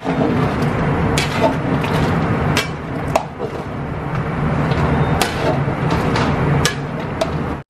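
Long metal ladle stirring a large aluminium stockpot, scraping and knocking against the pot with scattered sharp clanks, over a steady background rush.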